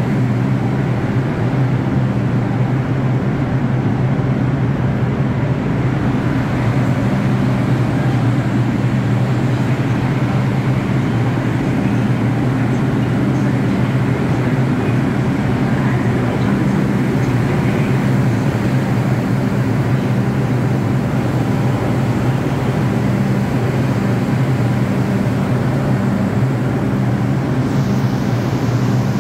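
Steady low hum of a New York City Subway train standing at a station platform with its doors open, under an even station din.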